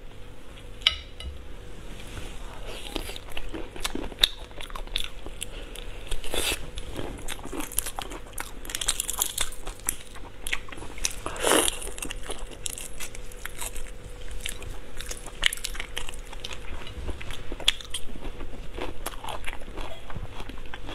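Shrimp being peeled and eaten close to a lapel microphone: shells crackle and snap as fingers pull them off, mixed with wet chewing. The crackles come in irregular bursts, with a few louder cracks.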